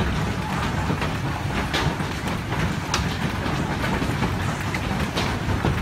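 Heavy hailstorm: a dense, steady clatter of hailstones striking the ground, with sharper single impacts scattered through.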